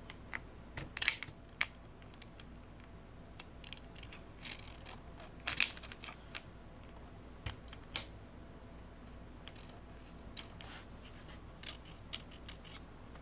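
Irregular small clicks, taps and scrapes of a 35mm film cartridge being handled and seated in the open back of a Pentax K1000 film camera, with a few louder clicks about a second in, midway and about eight seconds in.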